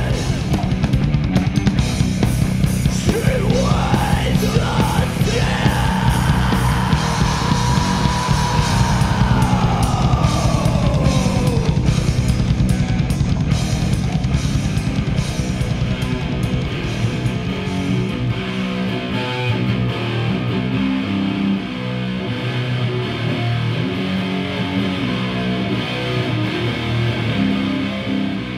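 Heavy metal music: distorted electric guitar over fast drums, with sliding, bending high notes between about three and twelve seconds in.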